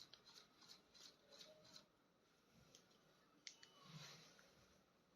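Near silence, with faint light clicks and rustles: several in the first two seconds, then a sharper pair about three and a half seconds in.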